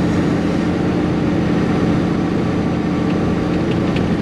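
Steady drone of a cabover semi-truck's diesel engine and its tyres on wet pavement, heard inside the cab while cruising at highway speed.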